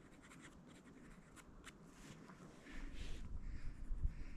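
Quick, light sketching strokes on paper, a series of short scratches, with a low rumble coming in over the last second and a half.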